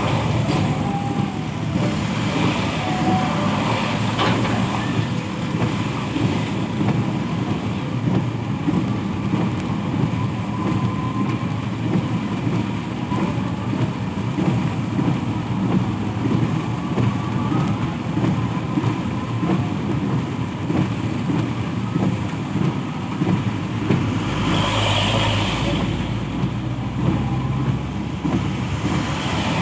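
Road traffic, with a heavy vehicle's engine running steadily; a short hiss comes about 25 seconds in, and a deeper rumble joins shortly before it.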